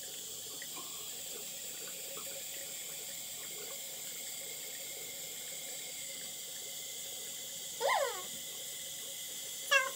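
A tap running steadily into a bathroom sink. About eight seconds in there is a brief vocal sound that slides in pitch, and another short one comes near the end.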